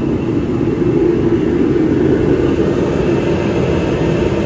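Forced-air torpedo heater running with a steady, even roar.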